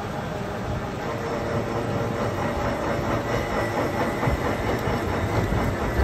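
Shaper machine cutting the teeth of a 70-tooth internal ring gear: a steady rhythmic mechanical clatter from the reciprocating cutter working the metal, with a faint steady tone underneath. It grows a little louder about a second in.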